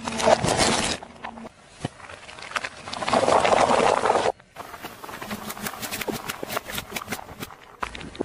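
Objects being crushed under a slowly rolling car tyre, in a series of separate clips: a short crackling crunch at the start, a longer and the loudest crunch about three to four seconds in as the tyre flattens paper cups, then a run of sharp crackles and clicks.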